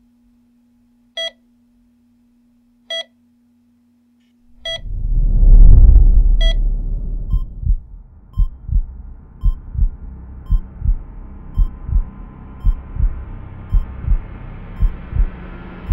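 Patient monitor beeping about every 1.8 seconds over a steady low hum. About 4.5 seconds in, a deep whoosh swells up, and then a heartbeat thumps lub-dub about once a second under rising sustained music, with faint quick beeps above it.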